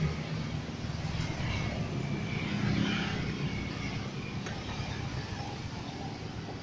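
A steady background drone of outdoor noise, with no distinct knocks.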